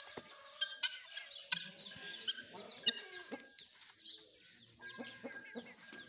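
Fowl clucking: a run of short, sharp calls at irregular intervals.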